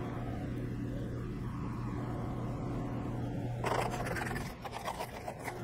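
A steady low hum that stops about four and a half seconds in. Over the last two seconds come scraping and clicking handling sounds on wood at the workbench.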